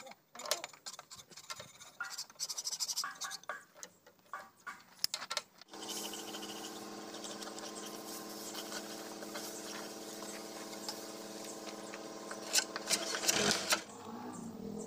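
Ratchet wrench clicking and metal tools scraping on the grader's steel chain-case housing as cover-plate bolts are worked. About six seconds in, a steady machine hum starts and runs until shortly before the end, with a few sharp clicks near the end.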